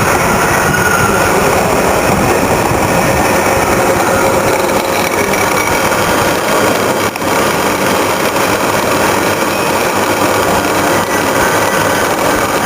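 Radial drilling machine's gearbox running, a loud, steady mechanical noise with faint whining tones from the meshing gears.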